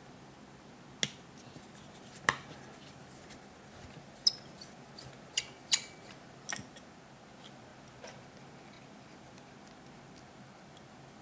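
Small metal carburettor parts and a screwdriver being handled and set down, giving about six sharp clicks and taps in the first seven seconds, a couple with a brief metallic ring.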